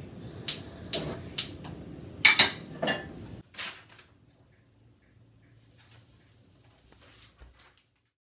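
Kitchen clatter: dishes and utensils being knocked and set down on a counter, about six sharp clinks and knocks over two and a half seconds. About three and a half seconds in it drops to a few faint knocks.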